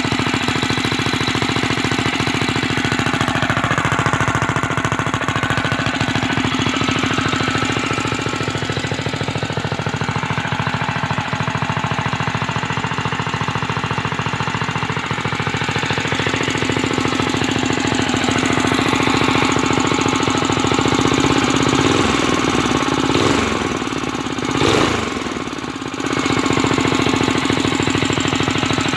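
Built Predator 212cc single-cylinder four-stroke engine on a custom minibike, running steadily with a rapid, even chugging from its exhaust. The level dips briefly about 24 seconds in, then comes back.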